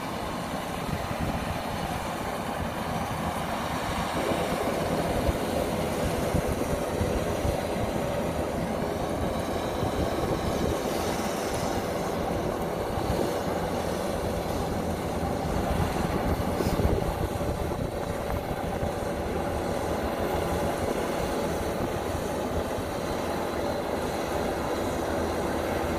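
Kubota DC-93 combine harvester running steadily as it cuts rice, moving slowly through a waterlogged paddy. About four seconds in, a steady higher whine joins the engine and machinery noise.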